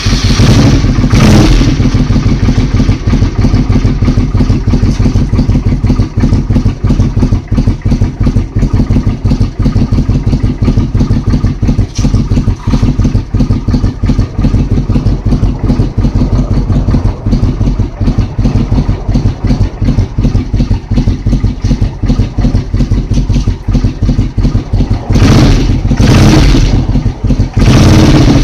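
Suzuki Intruder Classic 400 V-twin idling through a YLP aftermarket muffler, with a rapid, even, lumpy beat that sounds Harley-like. It is revved briefly about a second in and blipped twice near the end.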